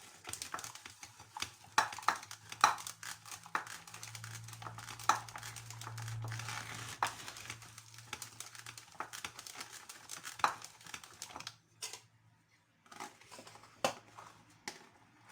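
Manual food grinder working soft steamed figs into a jam-like paste: irregular squelching, rustling and clicking, with a low steady hum for a few seconds in the middle and a short pause about twelve seconds in.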